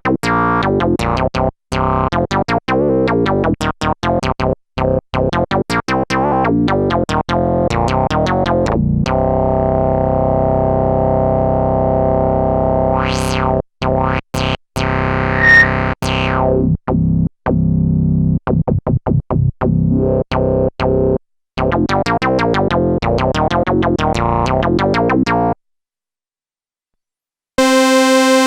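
Korg monologue monophonic analog synthesizer playing factory presets: runs of short staccato notes, then a long held buzzy note with a sweep that climbs high and falls back. More quick notes follow, then a pause of about two seconds, and a new patch starts just before the end.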